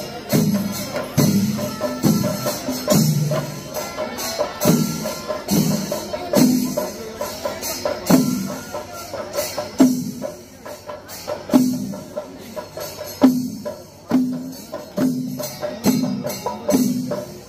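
Temple festival percussion ensemble playing live: deep drum strokes land roughly once a second, with bright metal cymbal clashes in between.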